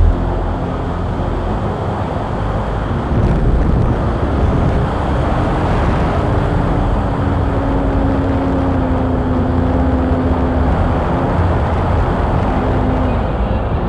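Electric motor and propeller of a radio-controlled Hawker Hurricane model running in flight, with a steady rush of air over an onboard camera microphone and a hum that drifts slightly lower before fading near the end.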